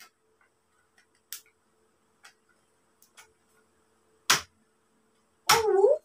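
Metal poles and fittings of a telescopic clothes rack clicking and knocking now and then as it is put together, with one sharp, louder knock about four seconds in. Near the end comes a short sound whose pitch dips and rises.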